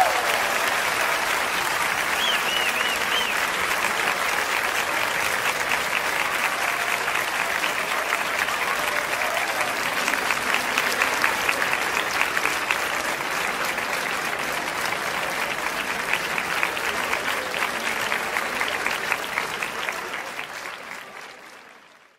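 Large audience applauding steadily, fading out over the last couple of seconds.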